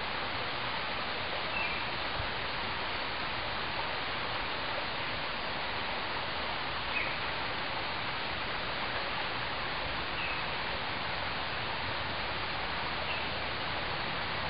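Steady outdoor hiss with four faint, short bird chirps spaced about three seconds apart.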